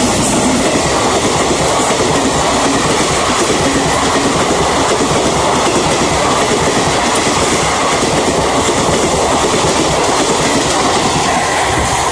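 An Indian Railways express train passing at speed close by, its locomotive and then a long rake of passenger coaches rushing past. It makes a loud, steady rumble and clatter of wheels on the rails, easing slightly near the end.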